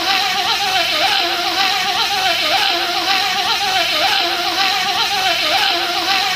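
A man's voice imitating a bee with a steady, wavering buzz, the same short snippet looped over and over without a break.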